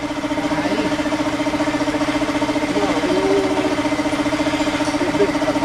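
A small engine running steadily at idle: an even hum with a fast, regular pulse.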